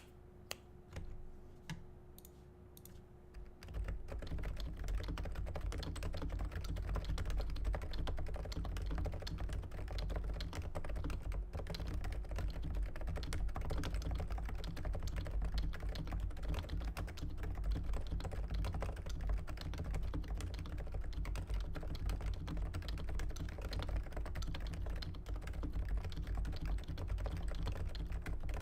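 Fast typing on a Realforce 86U Topre keyboard fitted with Hi-Pro keycaps, 55 g domes and lubed purple sliders. A few separate keystrokes come first, then continuous rapid typing from about four seconds in. A faint steady hum runs underneath.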